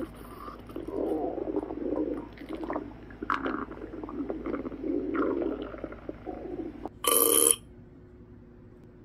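Stomach gurgling and rumbling sound effects: irregular wet churning with small pops and clicks. About seven seconds in comes a short, loud, ringing burst that cuts off abruptly, leaving a faint low hum.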